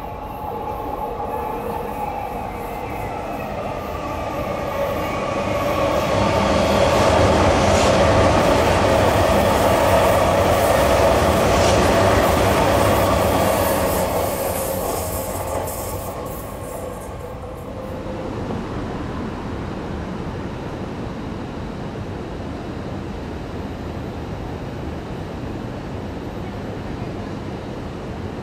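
Tokyu 3020 series electric train passing, its SiC-MOSFET VVVF inverter drive giving a steady motor whine as it comes in, then wheel and rail noise that swells to a peak about seven to thirteen seconds in and fades away by about eighteen seconds. After that, a quieter steady background of distant rail noise.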